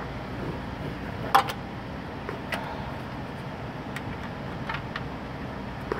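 Irregular clicks and taps of parts and tools being handled while a replacement engine coolant temperature sensor is fitted into the radiator: one sharp click about a second and a half in, then a few lighter ones, over a steady low hiss.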